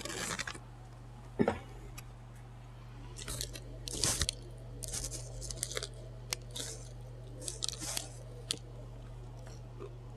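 Close-miked chewing and biting of a Subway sandwich, in irregular short crackling bursts, with louder bites about one and a half and four seconds in. A low steady hum runs underneath.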